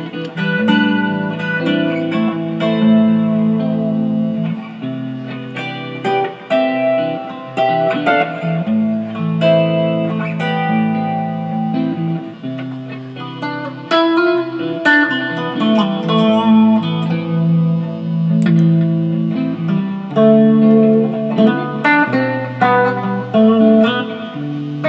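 Electric guitar, a 1965 Fender Mustang, played after a re-fret and setup. Picked single notes and chords ring out one after another.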